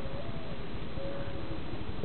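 Steady background hiss at an even level, with two faint, brief tones.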